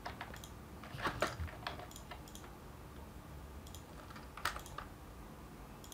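Faint, scattered clicks of a computer keyboard and mouse, in small clusters about a second in and again past the four-second mark.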